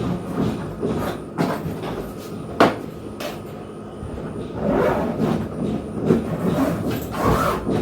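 Hard trolley suitcases being handled: several knocks, the loudest about two and a half seconds in, then a rough rumbling scrape for the last few seconds.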